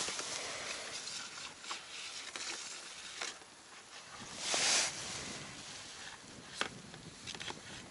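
Handling noise from an angler in an inflatable boat: quiet rustling of clothing and gear, a louder rustle about halfway through, and a few light clicks and knocks near the end.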